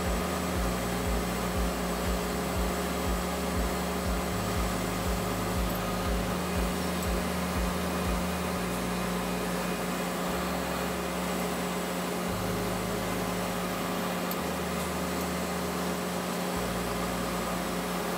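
Steady machine hum of a CNC vertical milling machine standing by, with a constant low tone under an even hiss.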